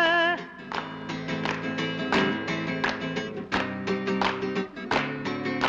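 Instrumental outro of a song: a guitar strumming chords in a steady rhythm, just after the last held sung note cuts off a moment in.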